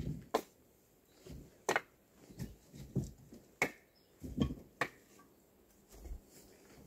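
Pieces of split firewood knocking together as they are picked out of a woodpile: a series of sharp wooden clacks, roughly one every half second to second.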